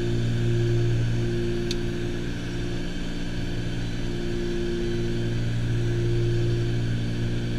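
Twin piston engines and propellers of a Piper Aerostar droning steadily as heard inside the cockpit in flight, a deep hum with a higher tone that comes and goes every second or so. A small click sounds a little under two seconds in.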